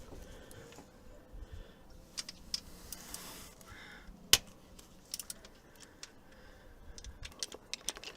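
Scattered light metallic clicks and taps of hand tools and engine parts being handled while the timing chain tensioner comes off, with one sharp click about four seconds in.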